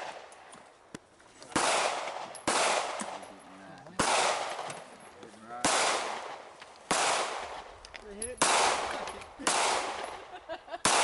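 Gunfire on an outdoor range: about seven sharp shots at irregular intervals of a second or so, each trailing off in a long echo, with a few fainter shots in between.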